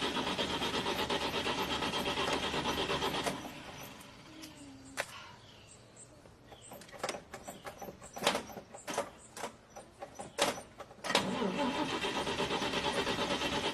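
A car's starter cranking the engine with a pulsing rhythm, without it catching; the engine is thought to be flooded. The cranking stops about three seconds in, several sharp clicks and knocks follow, and the cranking starts again about eleven seconds in.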